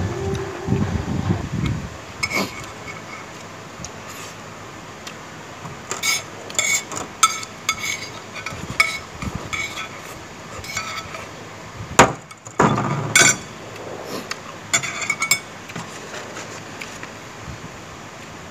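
Spoon and chopsticks clinking and scraping against a hard plastic plate while eating, in scattered sharp clicks with a light ring. A single louder knock comes about twelve seconds in.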